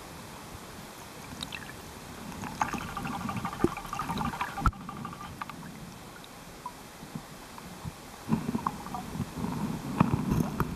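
Underwater ambience heard through the sealed body of a waterproof compact camera resting on a lake bed: a muffled low rumble and hiss with scattered sharp clicks and crackles. The clicks bunch into louder stretches a couple of seconds in and again near the end, and the background hiss drops abruptly about halfway through.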